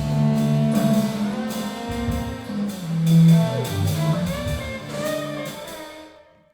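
Small ensemble playing: several held instrument notes over percussive strikes, fading out about six seconds in.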